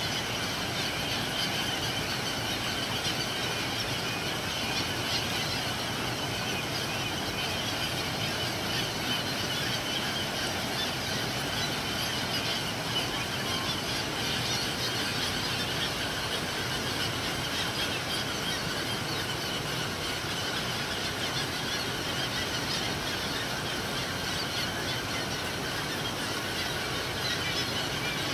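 A large flock of gulls calling constantly, many squealing cries overlapping into one dense, unbroken high chorus, over a steady wash of water.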